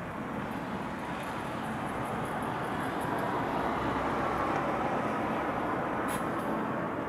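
Steady city traffic noise that swells a little in the middle and eases off again, with one brief sharp click near the end.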